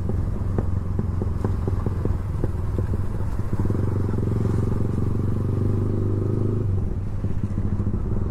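Yamaha MT-15's single-cylinder engine running through an Akrapovic exhaust with the dB killer removed, popping and crackling on the overrun (backfire) for the first few seconds. The throttle then opens to a steadier, louder exhaust note that eases off again near the end.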